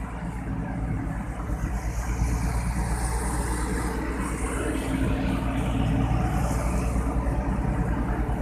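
Street traffic: cars and vans running slowly or idling close by, a steady low engine rumble that grows a little louder after about two seconds.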